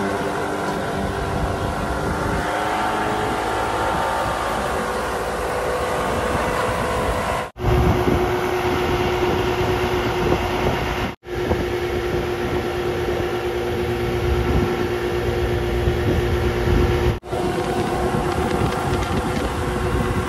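Mercury outboard motor running steadily at speed, with wind and the rush of water from the wake. The sound cuts out for an instant three times.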